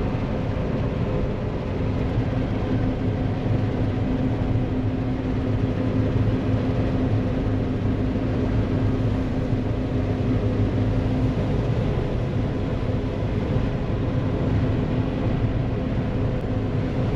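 Combine harvester running steadily, its engine and threshing rotor turning. One of its humming tones drops away about two-thirds of the way through.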